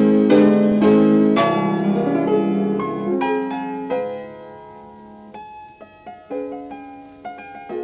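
Piano music: a few loud chords struck in the first second and a half and left ringing, then quieter, lighter notes.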